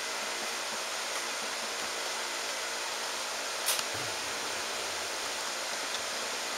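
Steady, even hiss, with a short knock about four seconds in.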